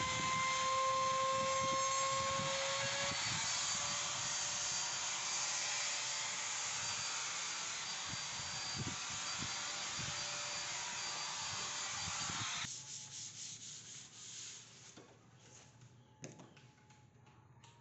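Trim router with a flush trim bit running, cutting away the overhanging HPL laminate along a cabinet edge: a steady high motor whine over cutting noise. It stops abruptly about two-thirds of the way through, followed by a few faint knocks and taps.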